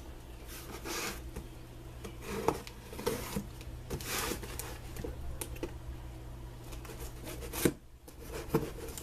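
Knife blade sawing and scraping through packing tape on a cardboard box, in short scratchy strokes with rustling and a few clicks and one sharp knock past the middle. The cutting goes hard, which is put down to tough tape or a knife that needs sharpening.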